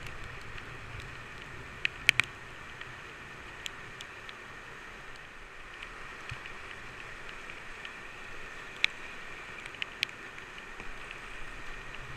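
Fast river rapids rushing steadily around a kayak, with a few sharp clicks and taps against the boat-mounted camera, a quick cluster of them about two seconds in.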